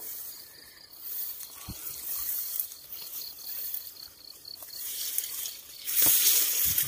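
Tall grass and rice stalks rustling as someone pushes through them on foot, loudest from about six seconds in. Under it an insect chirps in a quick, even pulse of about three or four chirps a second, with a few soft knocks.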